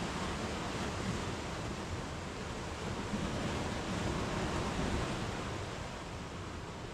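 Small waves breaking and washing up a sandy shore, foaming against rocks: a steady rush of surf that swells a little in the middle and eases slightly near the end.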